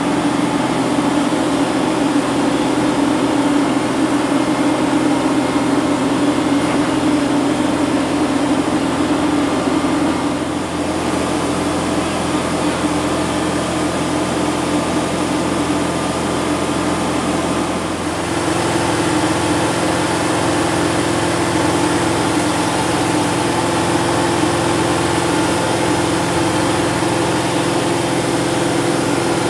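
Kubota HST compact tractor's diesel engine running steadily under work, its pitch stepping up about eighteen seconds in.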